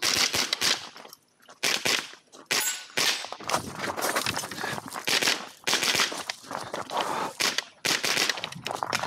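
.22LR rifle firing rapid strings of shots, several a second, with a couple of short breaks between strings.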